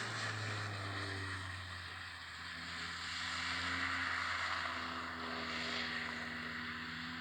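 An engine running steadily under a broad hiss, like a motor vehicle on the move.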